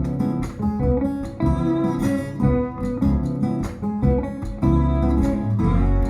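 Acoustic guitar music with plucked and strummed notes, played back through B&W DM603 S3 floorstanding speakers driven by a Sony TA-F490 amplifier. A deep, sustained bass note comes in about four and a half seconds in.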